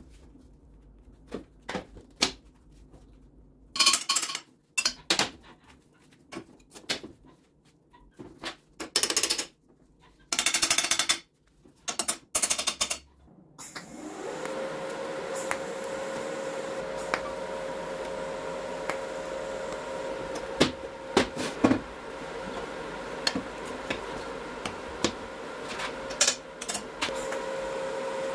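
Workshop power-tool work: a series of short, harsh bursts of noise and knocks, then from about halfway an electric motor running steadily with a constant tone and occasional clicks and knocks.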